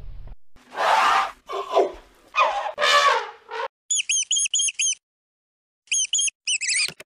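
An elephant calling in four short, harsh bursts, then mice squeaking in quick runs of high, hooked chirps from about four seconds in.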